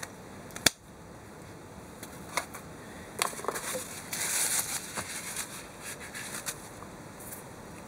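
Scattered small metal clicks and taps as the parts of a Kawasaki Z500B cam chain tensioner are handled, the loudest about a second in, with a brief rustle about halfway.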